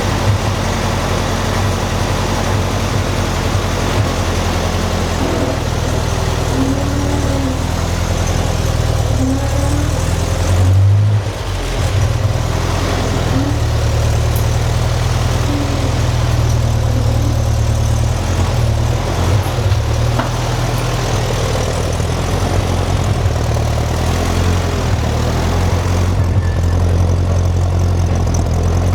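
1955 Ferguson TEA-20 tractor's four-cylinder petrol engine running steadily at low speed, with a brief louder surge about eleven seconds in.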